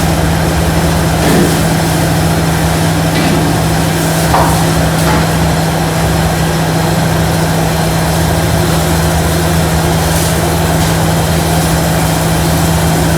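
Electric instant rice grinder running steadily: a loud, even motor hum with one strong low tone and a few faint knocks in the first few seconds.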